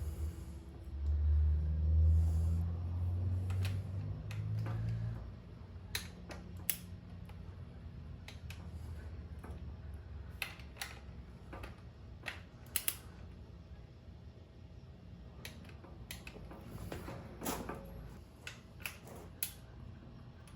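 Hand tools and motorcycle parts clicking and knocking in scattered single strokes, with a low rumble during the first five seconds.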